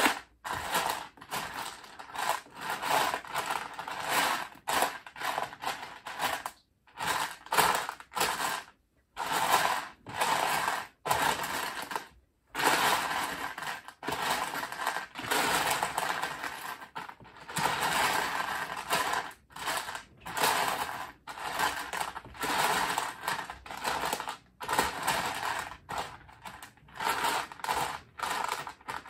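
Plastic LEGO pieces clattering and rattling as they are rummaged through and handled, in bursts of a second or two with short pauses between.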